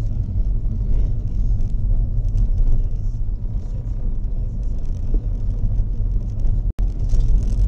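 Car driving on a village road, heard from inside the cabin: a steady low rumble of engine and tyre noise. The sound cuts out for an instant near the end.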